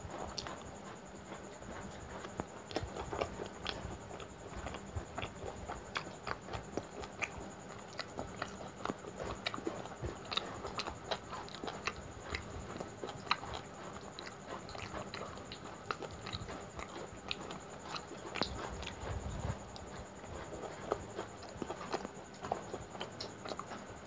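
A person eating mutton curry and luchi by hand: chewing with wet mouth clicks and lip-smacks in an irregular run, mixed with fingers working the curry and tearing the soft fried bread.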